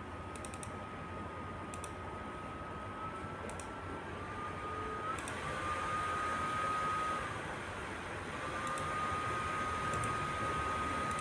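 A few faint computer mouse clicks, a second or more apart, over steady room noise and a thin high whine that wavers in pitch and briefly drops out twice.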